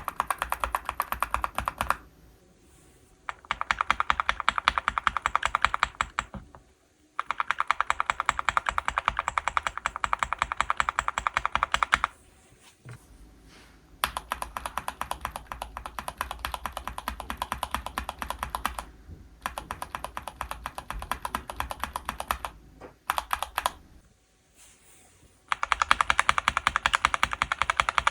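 Fast typing on a mechanical keyboard with linear switches, rapid keystroke clicks in several runs separated by short pauses.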